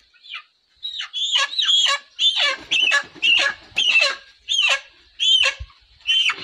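A chicken squawking over and over in short, falling cries, about two a second, as it is held upside down by its legs.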